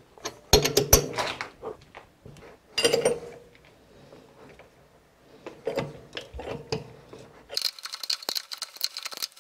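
Metal clinks and knocks from a lathe as the carriage brings a clamped workpiece onto a 7/8-14 tap held in the chuck. Near the end comes a scraping hiss with small clicks as the chuck is turned by hand and the tap starts cutting thread.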